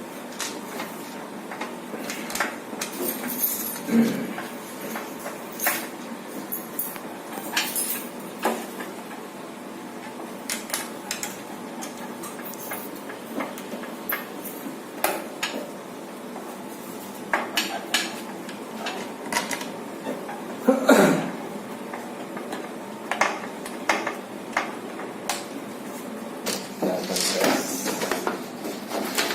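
Irregular clicks, clinks and knocks of hard metal and plastic parts being handled and fitted together while an LED street-light fixture is assembled, with louder knocks about four seconds in and again near 21 seconds.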